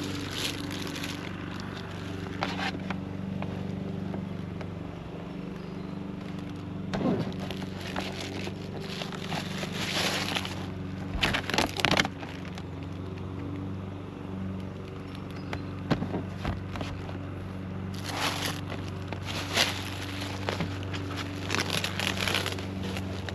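Tar paper crackling and crinkling as it is handled and pressed down on a roof to seal a leak, with a few sharper knocks around the middle, over a steady low hum.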